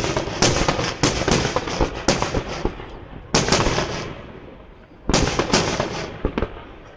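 Aerial firework shells bursting: a rapid series of sharp bangs, clustered near the start, about a second in, about three and a half seconds in and again about five seconds in, each cluster fading out in a rumbling tail.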